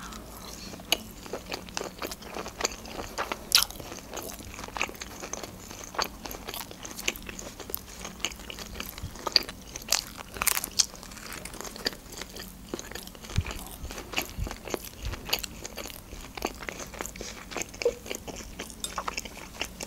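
Close-miked eating: chewing with many small sharp clicks of food in the mouth, and a louder bite into a slice of pizza about ten seconds in.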